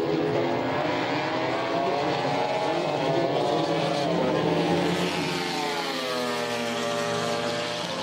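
Racing motorcycle engines running at high revs around the circuit, their pitch sliding down and then climbing back up over the last few seconds.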